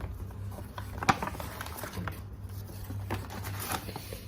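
Hands handling small items and packaging: scattered light rustles and clicks, with one sharp click about a second in, over a steady low hum.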